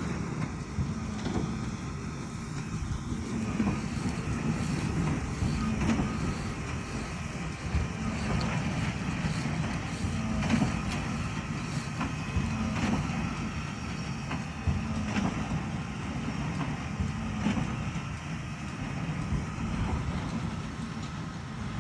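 Heavy farm machinery running steadily, an engine's drone with a faint knock every couple of seconds.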